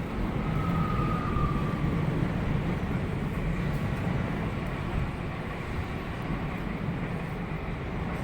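Electric commuter train running along the line with a steady rumble, and a brief high tone about a second in.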